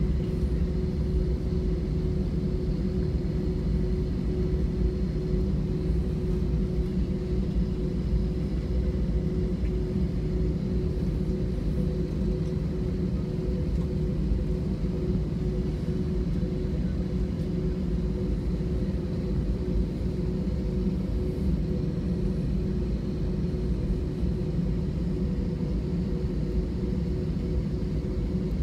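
Cabin noise of an Airbus A321-231 taxiing, heard from a window seat by the wing: the IAE V2500 engines at idle make a steady low rumble with a couple of steady hums, even throughout.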